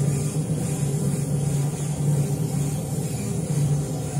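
Workshop machinery running with a steady low hum and a faint high hiss.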